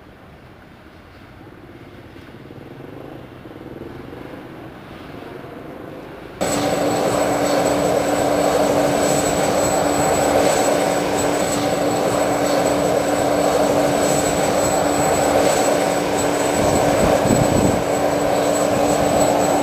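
Aircraft engines running at an airport: a steady, loud noise with a constant hum and a thin high whine that comes in abruptly about six seconds in. Before that, a fainter engine sound grows gradually louder.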